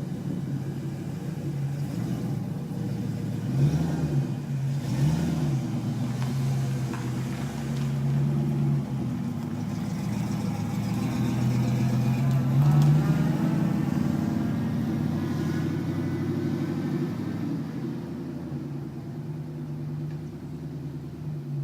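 1987 Ford Mustang GT's 5.0-litre V8 idling cold and being revved: two quick blips about four and five seconds in, then longer held revs that peak about thirteen seconds in before it drops back to idle.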